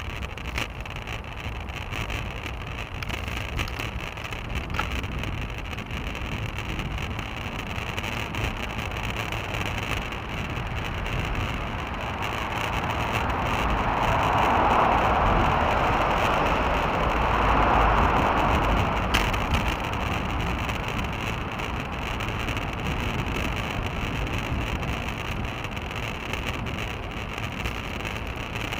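Steady wind buffeting and road rumble picked up by a bicycle-mounted action camera while riding, with a louder traffic-like swell lasting several seconds around the middle.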